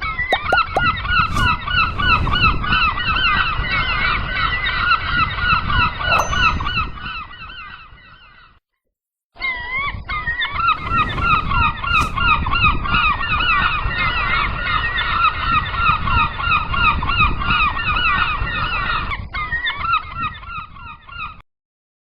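A flock of gulls calling over one another in a dense, continuous chorus of wavering cries, over a steady low rumble. The sound breaks off for under a second about nine seconds in, resumes, and cuts off shortly before the end.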